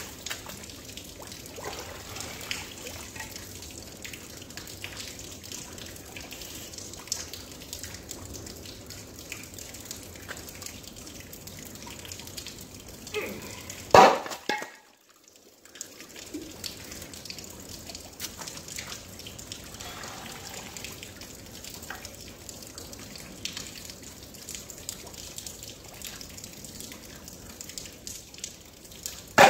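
Shallow river water trickling and dripping steadily. About halfway through comes one loud clank as a thrown steel railway tie plate lands on the rocks at the bank.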